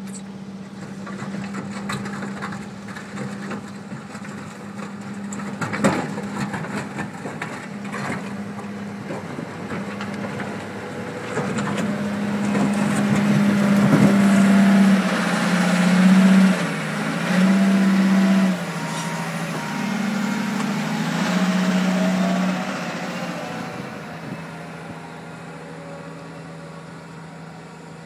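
Caterpillar 950 wheel loader's diesel engine running as the machine drives up and passes close by, loudest in the middle. The engine revs up and down several times, then fades as the loader moves away. Sharp knocks come about six and eight seconds in.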